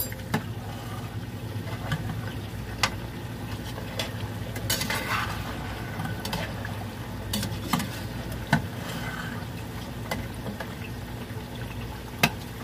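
A long-handled spoon stirring food in a cooking pot, knocking and scraping against the pot every second or two over a steady low hum.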